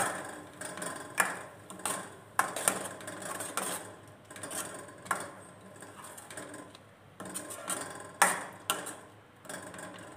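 Metal spatula stirring a thick masala paste in a non-stick kadai, scraping and tapping irregularly against the pan as the masala sautés.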